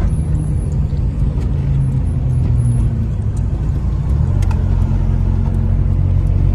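Nissan Silvia S14's turbocharged SR20 four-cylinder engine, heard from inside the cabin while driving. The revs climb, ease off about three seconds in, then climb again.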